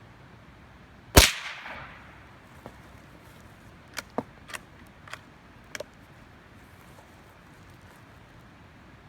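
A single loud gunshot about a second in, ringing out briefly afterwards, followed by several much fainter sharp cracks spread over the next few seconds.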